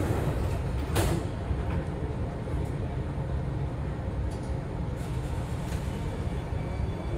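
Sliding doors of a C830C Alstom Metropolis metro car shutting with a single thud about a second in, over the car's steady low rumble.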